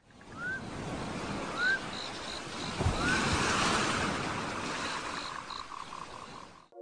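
Sea waves washing in a steady rush, with three short rising bird calls in the first three seconds and faint high chirps behind them. It fades in at the start and cuts off suddenly near the end.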